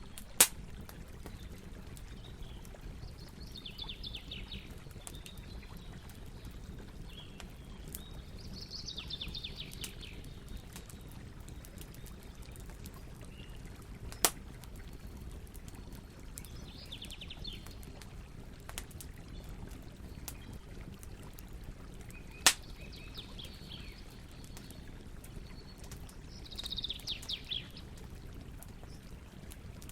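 Campfire burning with a steady low rustle, broken by three sharp crackling pops, the loudest sounds. A songbird sings short rapid trilled phrases every few seconds.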